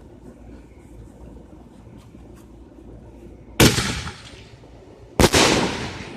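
Two loud firework bangs about a second and a half apart, each trailing off in a fading rumble.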